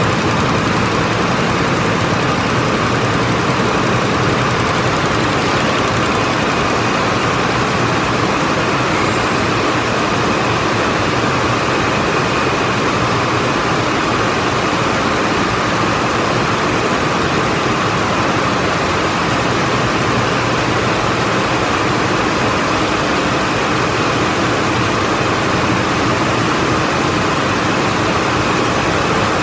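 A hall full of SD8100 water jet looms weaving at about 700 rpm: a loud, steady, dense machine noise with no let-up, the rapid beat of the many looms merging together.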